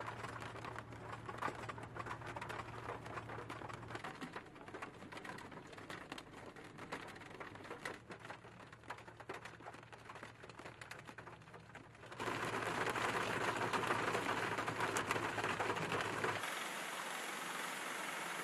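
Heavy rain falling, a dense, rapid patter of raindrops. About twelve seconds in, a louder, steady rushing sound takes over.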